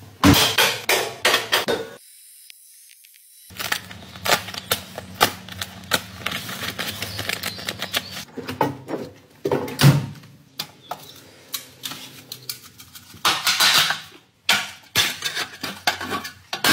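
Tools and metal parts clinking and knocking during work on a car: irregular sharp clicks with a few louder knocks.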